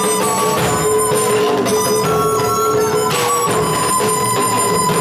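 Live stage music from a drum troupe: drums struck repeatedly over a held melody line, played loud through the PA.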